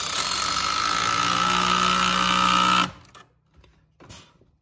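A power driver turning an 11 mm socket runs steadily for about three seconds, tightening the T-bolt clamp on a silicone coolant-pipe boot, then stops abruptly. A light click follows near the end.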